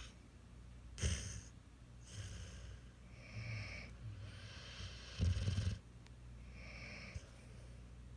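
Sleeping puppy snoring: a run of snoring breaths about a second apart, several with a whistling hiss, the loudest a little over five seconds in.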